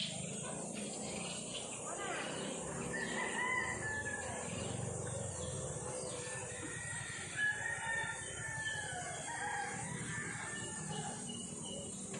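Roosters crowing a few times in drawn-out, pitched calls over a steady high hiss.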